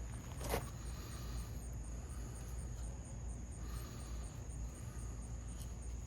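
Night insects chirping steadily: a continuous high trill with a high pulsing chirp repeating about four times a second. A brief rustle or click about half a second in.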